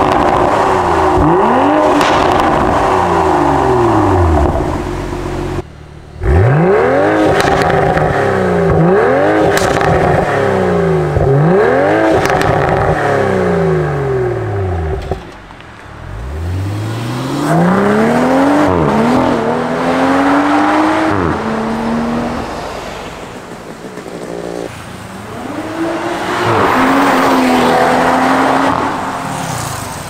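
BMW M340i's B58 turbocharged inline-six revving hard through a Fi Exhaust valvetronic catback with the exhaust valves open: a string of loud free-revving blips, each rising sharply and dropping back. Later comes a longer pull that levels off into a steady drone, then another rise near the end.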